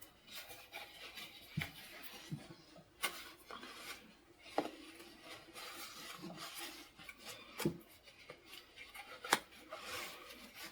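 Quilted fabric and cotton batting rustling and rubbing as a sewn plate cozy is pulled inside out by hand through its opening, with a few light taps and clicks.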